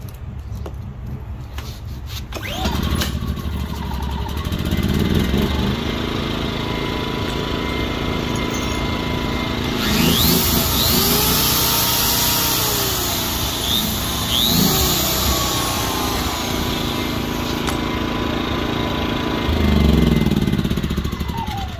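Craftsman 2500i inverter generator's small engine running, its speed rising and falling as the load changes. From about ten seconds in, a corded DeWalt drill's motor whines on top of it, powered by the generator.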